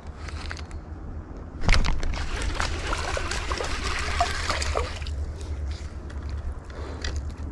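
Water sloshing and splashing for about three seconds, starting sharply a couple of seconds in, over a steady low rumble.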